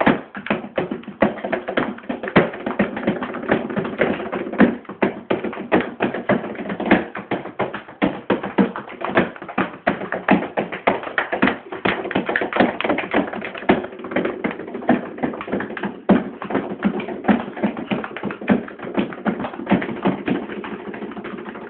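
Rapid, irregular slapping and tapping by hands, several hits a second.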